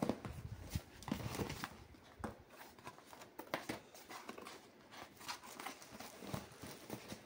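Cardboard box and plastic packaging being handled as a cordless drill is taken out of it: irregular rustling, crinkling, scraping and small knocks.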